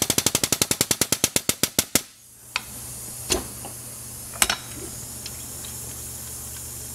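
Air-over-hydraulic pump driving a hydraulic knockout-punch ram, pulsing in a rapid string of sharp strokes that slow down and stop about two seconds in, as a dimple die flares a hole in 1/8-inch steel. A few faint clicks follow.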